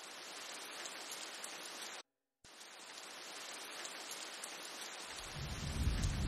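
Steady rain hiss that cuts out briefly about two seconds in, then a low rumble of thunder swelling up near the end.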